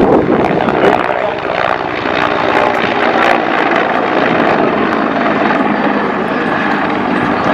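Helicopter flying nearby: steady engine and rotor noise with a faint steady whine.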